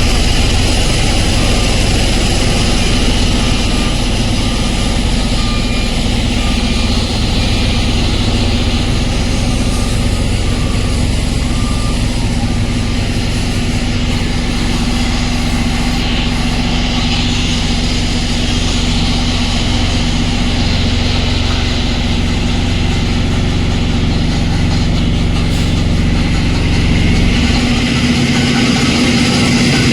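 Heavy machinery of a concrete batching plant running steadily: a loud, even mechanical drone with a constant hum, its deepest rumble dropping away near the end.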